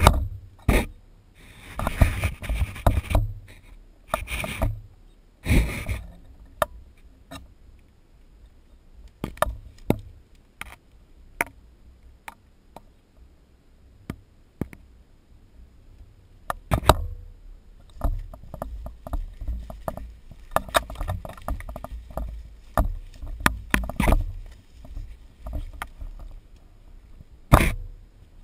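Handling noise on a camera mounted to a shotgun: irregular knocks, clicks and scrapes over a low rumble, thickest in a stretch a little past the middle.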